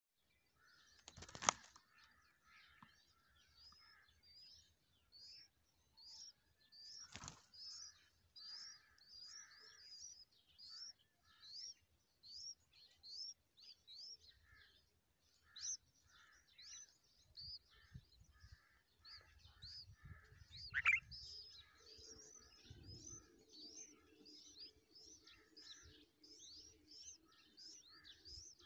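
Bulbul nestlings begging at the nest: a long run of short, high, falling chirps, a little more than one a second, with lower chirps between them. Two sharp clicks come in the first seconds, a louder knock a little after two-thirds through, and a low steady hum joins for the last quarter.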